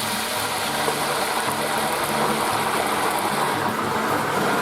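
Hot oil in a deep fryer bubbling and sizzling hard around a basket of frozen, ice-covered steak fries, a steady rushing noise as the ice and water boil off.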